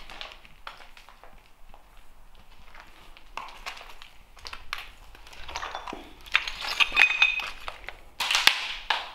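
Footsteps crunching over rubble, broken floor tiles and glass shards, with sharp clinks as pieces knock together. The crunching grows denser and louder from about six seconds in, with a loud scrape near the end.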